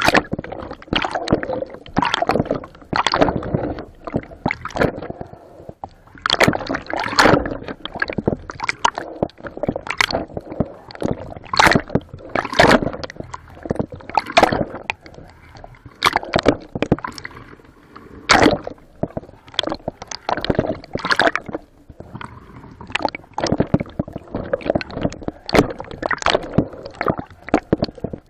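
Water splashing and gurgling in a string of irregular bursts, several every few seconds.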